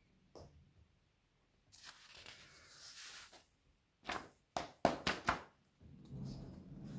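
A sheet of paper handled to clear off loose glitter: a hiss as the glitter slides off the tipped sheet, then about five sharp taps of the paper being knocked to shake off the excess, then a softer rustle.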